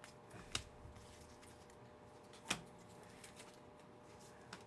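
Trading cards being handled: a few faint clicks and taps, one about half a second in and a louder one about two and a half seconds in, over a low steady hum.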